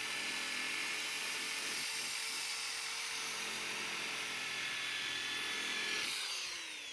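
Corded electric drill spinning a foam polishing pad against a wet plastic headlight lens, running steadily. About six seconds in the trigger is released and the motor winds down, its pitch falling.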